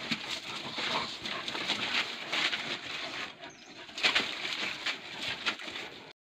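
Dogs scuffling and scrabbling over dry leaves and gravel as they bite and tug at a caught animal: irregular rustles and scrapes, with a short lull about three and a half seconds in.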